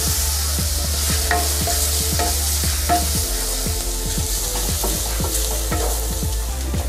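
Minced garlic sizzling in a little hot oil in a nonstick wok, with a wooden spatula stirring it and scraping against the pan in many short strokes.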